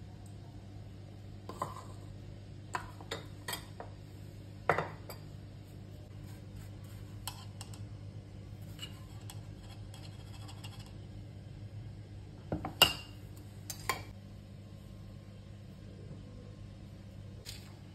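Metal measuring cups and a spoon tapping and clinking against a stainless steel mixing bowl while dry ingredients are measured in: scattered sharp knocks, the loudest about two-thirds of the way through, over a steady low hum.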